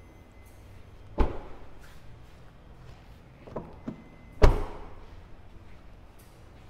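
Two heavy thunks from a Toyota Glanza hatchback's bodywork, about a second in and again some three seconds later, with two light knocks between them; the first is the front door being shut.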